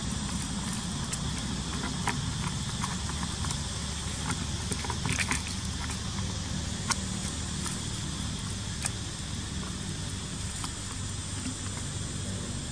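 Dry leaves crackling and rustling in short, scattered clicks as a baby macaque scrambles over them, thickest a few seconds in, over a steady low rumble.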